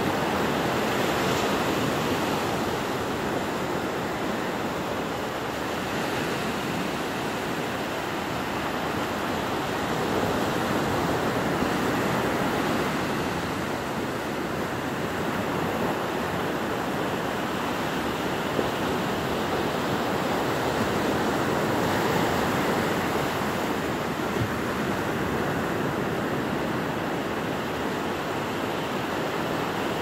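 Ocean surf breaking and washing up a sandy beach, a steady rush that swells and eases.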